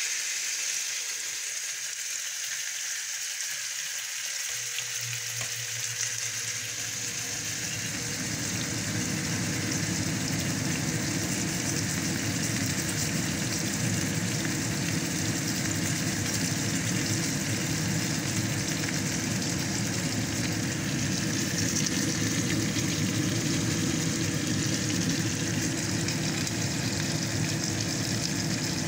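Steak sizzling in a frying pan: a steady frying hiss that grows fuller and slightly louder about five to eight seconds in, then holds steady.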